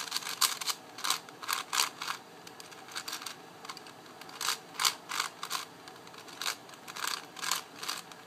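Shengshou 5x5x5 speed cube being turned by hand: its plastic layers click and clack in quick, irregular runs of a few turns a second, with short pauses. The cube is factory-lubricated and turns loosely.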